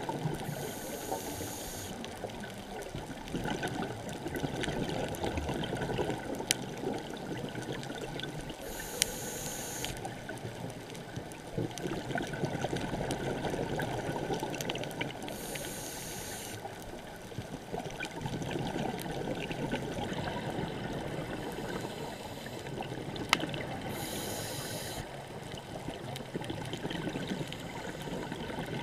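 Underwater sound on a scuba dive: a steady low rush of water, with a scuba regulator hissing four times at breaths about seven to eight seconds apart, and a few sharp clicks.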